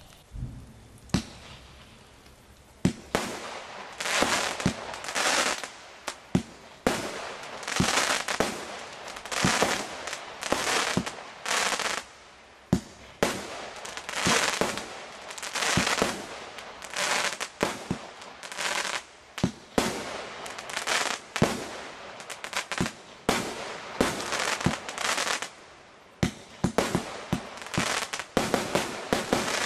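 Shogun 25 mm multishot fireworks cake firing shot after shot, about one a second. Each shot is a sharp launch pop followed by a short noisy burst as the shell breaks. The first couple of seconds are quieter, with a single pop, before the steady run of shots starts.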